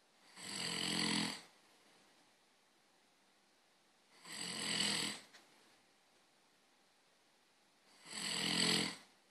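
Snoring: three drawn-out snores about four seconds apart, each lasting about a second, a low buzzing drone with a hiss of air over it.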